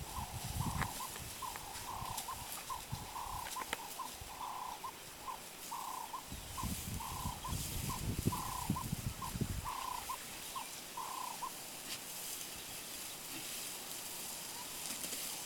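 A bird calling over and over in a steady rhythm of short, mid-pitched notes, longer and shorter notes alternating a few times a second, until it stops about three quarters of the way through. Low rumbling bursts of wind or handling noise come in twice.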